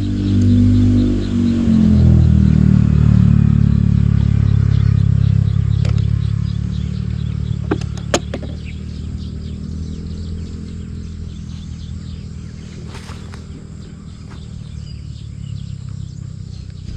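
A motor vehicle's engine running close by: its pitch shifts in the first two seconds, then it runs steadily and slowly fades away. A couple of sharp clicks come about eight seconds in.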